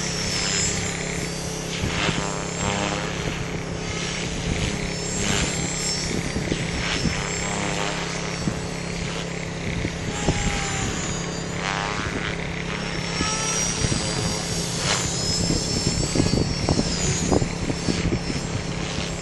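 450-size electric RC helicopter flying overhead: a steady motor and rotor whine that shifts in pitch as it manoeuvres.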